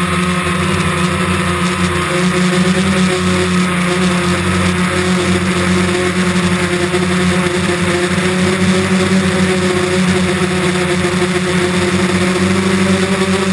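DJI Phantom quadcopter's motors and propellers humming steadily while it flies, with wind rushing and buffeting over the microphone.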